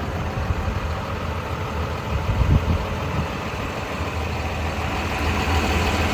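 John Deere 210G LC excavator's diesel engine running steadily, with a brief louder low rumble about two and a half seconds in.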